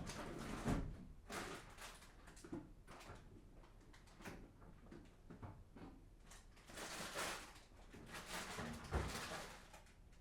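Household handling noises: a run of short scrapes, rustles and knocks, like doors, drawers or cupboards being worked, with a louder thump about a second in and another near the end.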